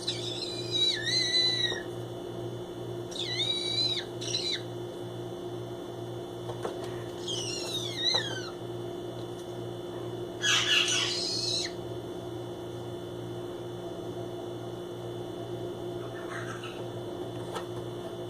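Pineapple green-cheeked conure making its odd, warbling calls in short separate bursts of bending pitch, with a louder, rougher burst about ten seconds in. A steady low hum runs underneath.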